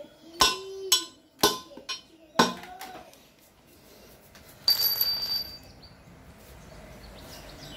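Hammer tapping a needle bearing into the aluminium gearbox casing of a Bajaj CT 100: five sharp, ringing metallic knocks about half a second apart. About five seconds in comes a short rasping clatter with a high ring.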